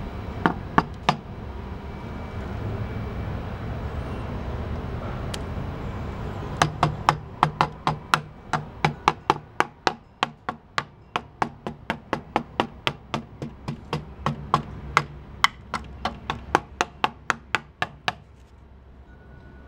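Tapping on the powered-up circuit board of a 1992 Sanyo 19-inch CRT TV to provoke an intermittent fault such as a bad solder joint and see whether the set shuts down. A few light taps come first, then from about a third of the way in a fast run of sharp taps, roughly three or four a second, stopping shortly before the end.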